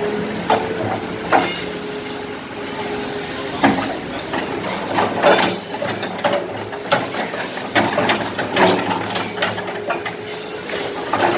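Excavator running with a steady hum, with repeated knocks, clanks and scraping as its bucket digs into broken concrete.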